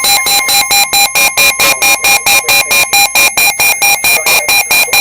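Weather radio's alert alarm beeping rapidly and evenly, several beeps a second. It cuts in over the routine forecast and signals an incoming severe weather warning.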